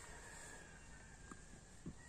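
Near silence: faint low background rumble, with one soft knock near the end.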